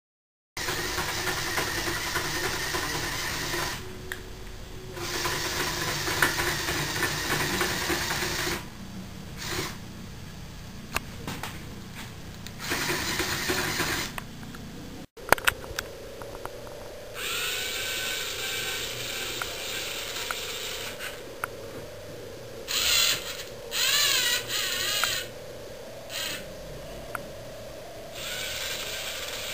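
Small LEGO electric motors whirring through plastic gears in repeated bursts of a few seconds, stopping and starting as the robotic arm moves. Some bursts carry a whine that wavers up and down. There is one sharp click about fifteen seconds in.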